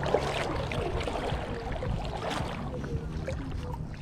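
Outdoor wind and water noise at a lake shore, a steady rushing hiss with a few faint, indistinct voices.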